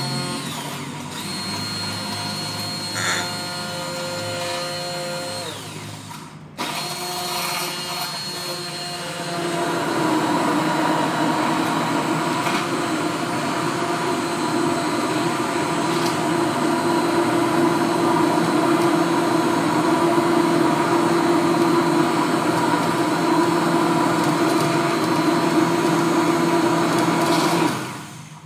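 Immersion (stick) blender motor running in a beaker of watermelon chunks, whirring steadily as it purées them. There is a short break about six and a half seconds in. It then runs louder from about ten seconds in and cuts off near the end.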